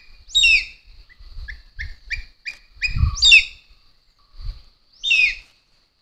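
Rufous-bellied eagle calling: three loud, high screams that each fall sharply in pitch and last under half a second, with a run of about six short, quieter notes between the first two.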